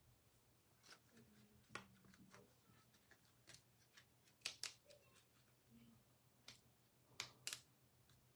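Near silence: room tone with a faint steady hum and scattered faint clicks and ticks, the clearest about four and a half seconds in and twice near the end.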